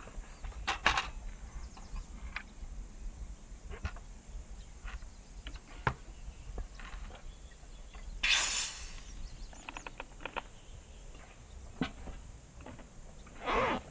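Knife cutting through a watermelon: scattered crisp taps and clicks, with one louder crunching rip about eight seconds in. Insects keep up a steady high hum behind it.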